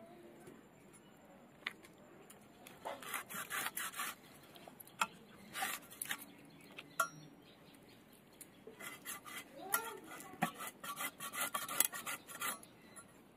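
Raw chicken being cut on a boti, a fixed upright curved blade: irregular spells of short clicking, crunching and scraping sounds as the meat and bone are pushed through the blade.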